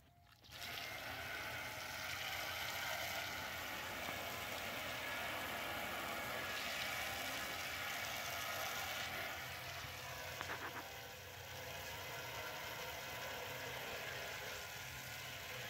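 Water from a garden hose jet spraying onto a perforated sheet-metal receiver cover and the concrete under it: a steady hiss of spatter that starts about half a second in.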